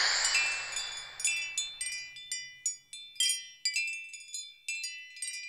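High, clear metallic chimes ringing in quick, irregular strikes, a few per second, each tone fading quickly. A swelling whoosh dies away over the first two seconds.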